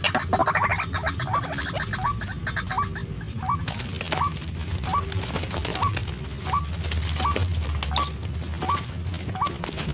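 A white-breasted waterhen caught in a wire snare, flapping and thrashing from about four seconds in. Under it, a short rising call note repeats evenly about twice a second.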